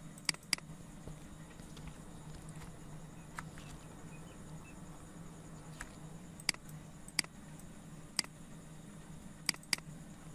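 Computer mouse button clicking: a quick double click near the start, single clicks spread through the middle, and another quick double click near the end, over a steady low hum.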